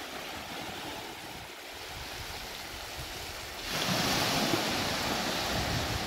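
Small waves breaking and washing up a flat sandy beach, a steady hiss that grows louder about four seconds in, with wind rumbling on the microphone.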